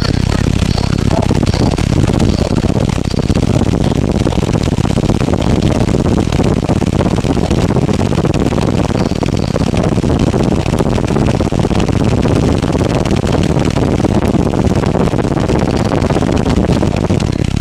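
Ten 18-inch Sundown Audio Team NEO subwoofers, driven by Dynamic Audio DA-7000.1 amplifiers, playing a low bass drop at extreme level: a loud, steady, dense rumble. Air blasting from the box buffets the microphone like wind.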